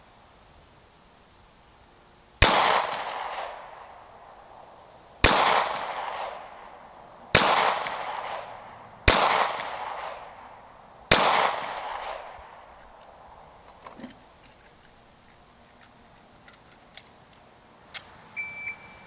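Five handgun shots, irregularly spaced about two to three seconds apart, each with a trailing echo. A few small clicks follow, and a shot timer's par beep sounds near the end, marking the 20-second par time.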